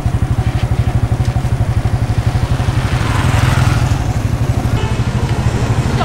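Small engine idling with a steady, rapid low chugging of about ten beats a second.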